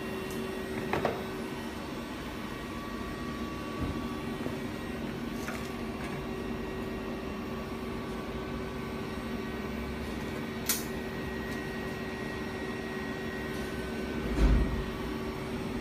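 A steady machine hum with a few faint clicks, and a low knock near the end.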